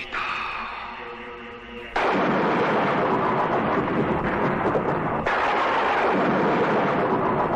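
Horror film soundtrack: a musical chord fades out, then about two seconds in a sudden loud, hissing sound effect cuts in. It holds for about three seconds, drops out for a moment, and comes back just as loud.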